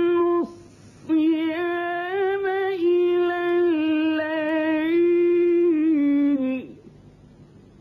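A male Qari's solo voice in melodic, drawn-out Quran recitation. A held note breaks off about half a second in for a quick breath, then one long ornamented note winds through small turns in pitch and stops about a second before the end.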